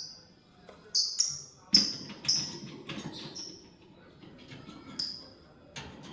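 Lovebirds giving short, sharp, high-pitched chirps, in a quick run from about one to three and a half seconds in and again about five seconds in.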